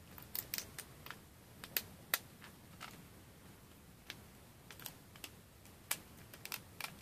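Small sharp clicks and snaps at uneven intervals as 3D-printed plastic support material is picked and broken away from a printed part.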